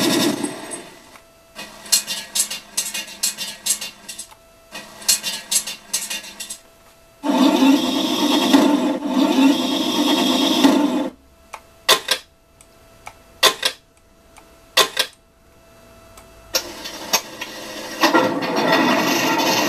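An RC Tiger I tank's sound card playing its effects through the model's small speaker: two stretches of fast rattling bursts, a loud simulated engine running for about four seconds, a handful of sharp single cracks, and the engine sound building up again near the end.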